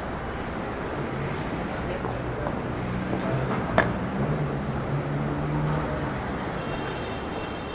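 City street traffic: vehicle engines running, with a low engine hum swelling in the middle and one short sharp click about four seconds in. A faint high tone comes in near the end.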